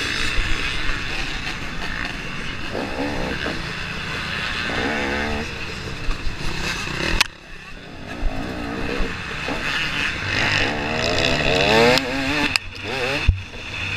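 KTM 250 XC-W two-stroke dirt bike engine revving up and down as the rider accelerates between shifts. The throttle shuts briefly about seven seconds in, then the revs climb again, with a few sharp knocks later on.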